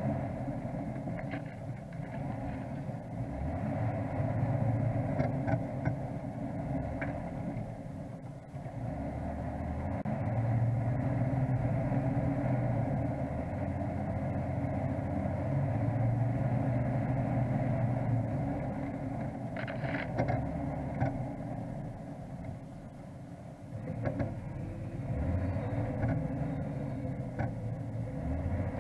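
Off-road vehicle's engine running at low speed while driving over a bumpy sand track, its note rising and falling with the throttle, with occasional knocks and rattles from the body.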